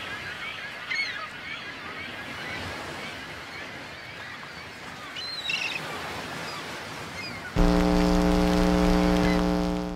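Surf washing over a rocky shore, with a few faint high chirps. About seven and a half seconds in, a loud, steady electric buzz with many overtones cuts in suddenly and drowns it out: a glitch sound effect.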